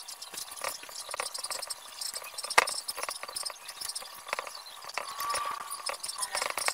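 A screwdriver and wire ends clicking and scraping on the screw terminals of a three-phase motor's terminal block as the leads are fastened. Scattered light taps, one sharper click about two and a half seconds in, and a quick run of clicks at the very end.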